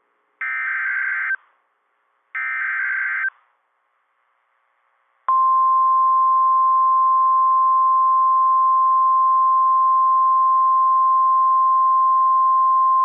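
NOAA Weather Radio alert: two SAME header data bursts, each about a second of harsh warbling digital noise, then after a two-second pause the steady single-pitch 1050 Hz warning alarm tone starts about five seconds in and holds. The alarm heralds a new warning broadcast, here a severe thunderstorm warning.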